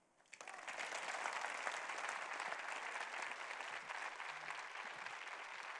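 Audience applauding, starting suddenly about half a second in and holding steady.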